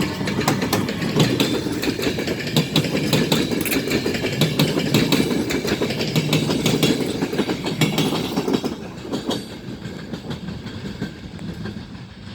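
Locomotive-hauled passenger train pulling out of a station, its cars rolling past with rapid clicking of wheels over rail joints over a steady rumble, fading away over the last few seconds.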